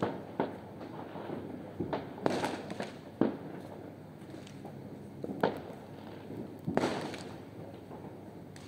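New Year fireworks going off: irregular sharp bangs, some in quick clusters of several, over a steady rumble of more fireworks further off.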